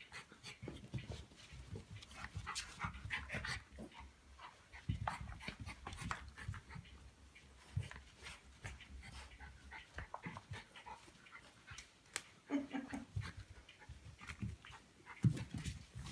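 Two Norfolk terriers playing tug of war with a toy, panting hard, with irregular short scuffles and dog noises.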